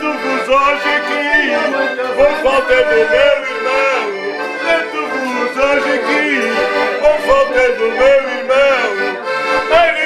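Accordion playing a traditional Portuguese folk tune, the melody sounding over full chords.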